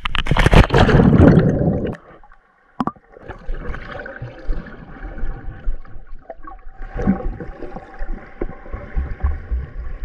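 Water splashing and sloshing as an action camera is dipped into a pool. About two seconds in the sound drops suddenly to the muffled rumble and hiss of the camera's microphone under the water, with one sharp click soon after.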